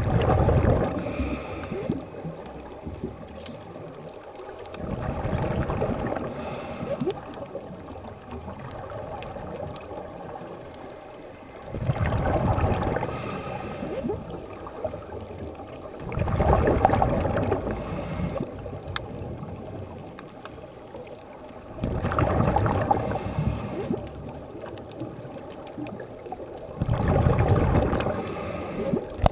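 Scuba regulator exhalations heard underwater: six gurgling bursts of bubbles, each about a second and a half long, coming every five or six seconds, with quieter water noise between them.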